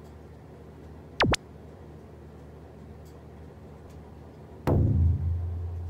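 Edited-in comedy sound effects: a very quick falling whistle-like zip about a second in, then a deep drum-like boom near the end that rings on and fades.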